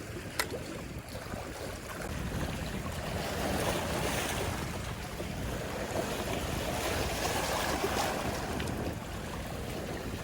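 Sea waves washing against a rocky shoreline, swelling twice, with wind on the microphone. A single sharp click sounds just after the start.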